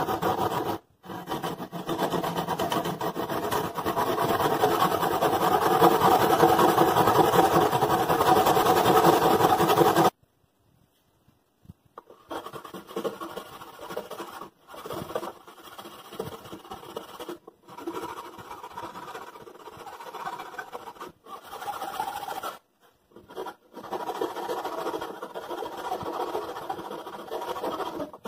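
Hand backsaw cutting into the end of a softwood board held in a vise: steady, fast sawing strokes for about the first ten seconds, then stopping abruptly. After a short pause, quieter scraping comes in short spells as a narrow hand tool is worked inside the sawn slot to clean it out.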